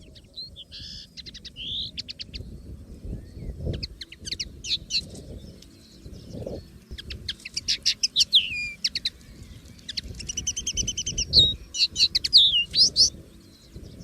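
Common linnet singing: a fast, varied twittering of chirps, quick trills and gliding notes, with a longer buzzy note near the end, in phrases broken by short pauses. A low rumble runs underneath.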